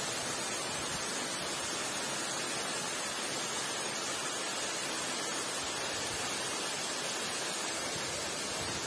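Waterfall: water dropping in thin streams down a rock face into a pool, a steady, even rushing hiss.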